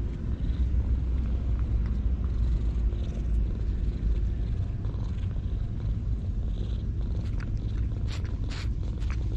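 Calico cat purring steadily as she is petted. Near the end, a quick series of short licks as she licks at the person's jeans.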